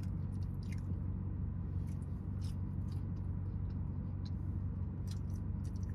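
Steady low hum of an idling BMW heard inside its cabin, with a few faint clicks.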